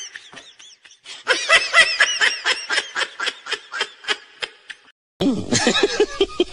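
High-pitched laughter in a quick run of ha-ha pulses, about four a second, trailing off after a short pause and then going again for several seconds. About five seconds in it cuts out, and music with talking starts.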